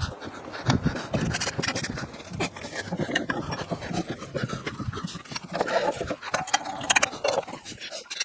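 A dog panting, mixed with irregular scraping and clicking noises.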